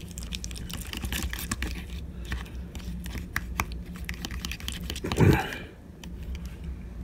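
Close-up chewing of food: many quick wet clicks and small crunches, with one brief louder low sound about five seconds in.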